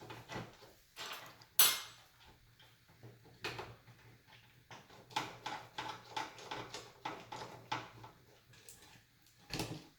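Scattered hard clicks, knocks and small clattering of a large graphics card and its plastic parts being handled and fitted back into a PC case. One sharp click, a little under two seconds in, is the loudest.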